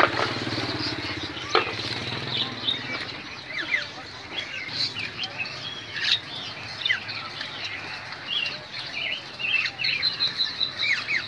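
Many caged songbirds chirping and calling over one another, a dense run of short, quick high chirps.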